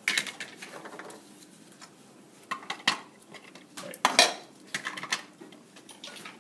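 Hard plastic pieces of an anatomical eye model clicking and clacking as they are handled and fitted back together on a bench: several separate sharp knocks, the loudest a little past the middle.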